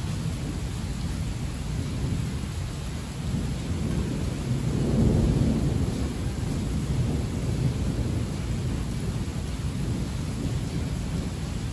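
Heavy rain falling steadily, with thunder rumbling low that swells about four seconds in, is loudest a second later and fades over the next few seconds.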